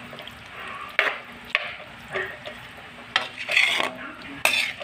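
A metal spatula scraping and knocking against a metal wok as ground pork and diced potatoes in tomato sauce are stirred: about six sharp scrapes, over a low steady sizzle.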